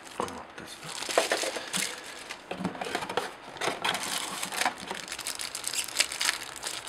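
Clear plastic accessory bags crinkling and a thin cardboard box rustling as they are handled, with many small sharp crackles and clicks.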